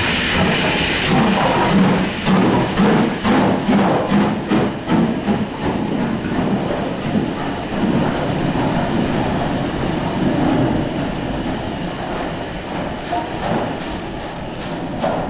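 BR Standard Class 4 2-6-4 tank locomotive 80002 in steam: a loud hiss of escaping steam, then the chuff of its exhaust beats, about two to three a second from about two seconds in, as it works along the line. The beats weaken after a few seconds under a steady rumble.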